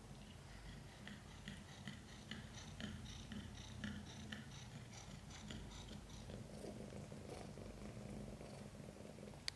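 Mother cat in labour purring steadily, with quick soft clicks of open-mouthed panting, about four a second, through the first half or so.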